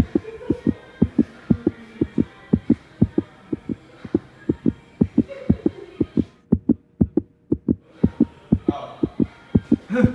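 Rapid heartbeat sound effect: steady low thumps, about four a second, running without a break.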